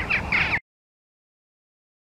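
Western jackdaws giving short, sharp calls in quick succession, cut off abruptly just over half a second in, leaving dead silence.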